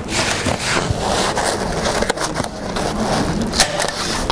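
Intello Plus airtight membrane sheet rustling and crinkling as it is pulled taut and smoothed by hand over the timber frame, with several sharp clicks in the second half.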